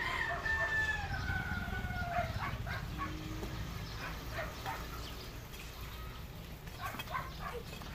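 A rooster crows once: a long call that slides down in pitch over the first two seconds or so, over a steady low rumble. Then come faint scattered taps as chopped taro and stalks are dropped into coconut milk in a wok.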